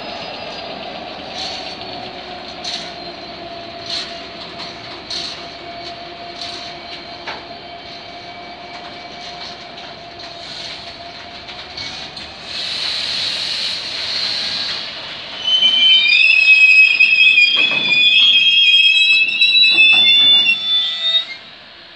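Freight train of empty open box wagons rolling past behind a DB Cargo Class 66 diesel locomotive, the locomotive's engine note fading as it draws away and the wagon wheels clicking over a rail joint about once every 1.3 seconds. About halfway through there is a brief hiss, then from about two-thirds in loud, high-pitched wheel squeal rings out for several seconds before stopping shortly before the end.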